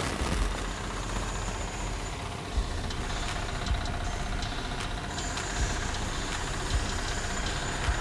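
Varsha 9 HP power weeder's single-cylinder diesel engine running steadily after a push-button electric start.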